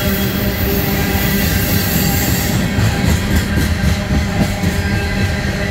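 Freight train cars rolling past at close range: a steady heavy rumble of steel wheels on rail with a high hiss, and a quick run of light clicks from about two and a half seconds in.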